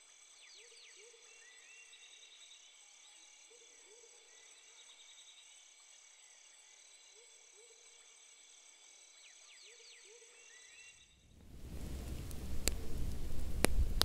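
Faint forest ambience: a steady, high, pulsing insect-like trill with short rising calls that come in clusters every few seconds. About eleven seconds in it gives way to a much louder crackling fire, with sharp pops over a low rumble.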